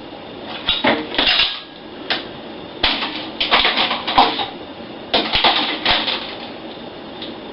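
Dishes clattering and clinking as they are handled, in several irregular bursts of sharp knocks.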